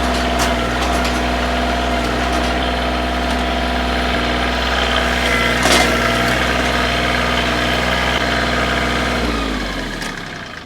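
Koiti compact tractor's engine running steadily with a brief knock or two, then shut off about nine seconds in, winding down to a stop.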